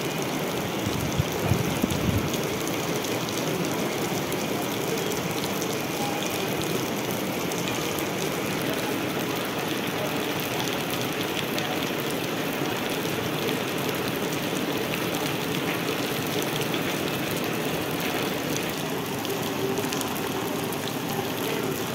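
Heavy rain falling steadily on wet ground and puddles, with a few low thumps a second or two in.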